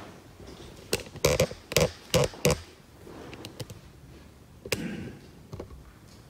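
A quick run of sharp knocks and thumps, about six in a second and a half, then a few faint ticks and one more thump with a brief rustle a couple of seconds later.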